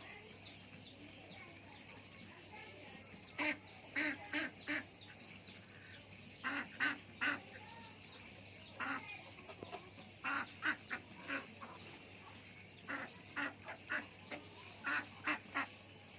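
Ducks quacking in short loud runs of two to five calls, about six runs spaced a second or two apart.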